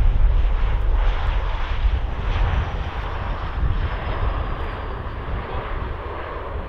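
An RAF BAe 146-200's four Lycoming ALF502 turbofans on the landing rollout: a steady jet rush with a faint high whine slowly falling in pitch, fading gradually, over low wind rumble on the microphone.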